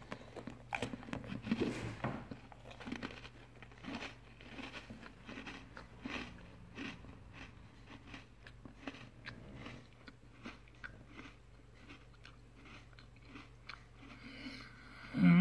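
A Nutella Biscuits biscuit being bitten and chewed: irregular crisp crunches, busiest in the first two seconds. A loud voice sound with falling pitch cuts in at the very end.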